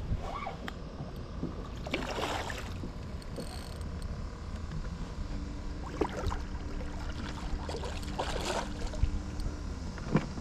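A hooked fish splashing at the surface beside a small boat while it is reeled in, in two spells about six seconds apart, over steady wind rumble on the microphone.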